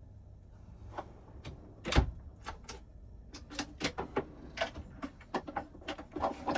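Rummaging through a drawer or cupboard for a spatula: scattered clicks and utensil rattles, with one heavier knock about two seconds in and a quicker run of clatter in the second half.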